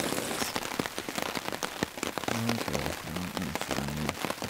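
Heavy rain falling on a tarp shelter overhead: a dense, continuous stream of individual drop hits. A few short low hums sound in the second half.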